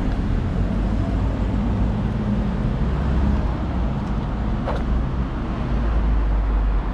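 City street traffic: the steady rumble and hiss of cars and taxis passing on the road, the low rumble swelling a little in the second half.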